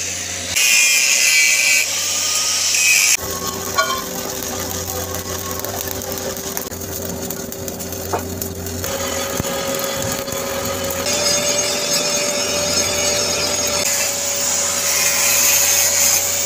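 Angle grinder grinding on a carbon steel pipe weld, alternating with stretches of the crackle of a stick-welding arc, over a steady machine hum.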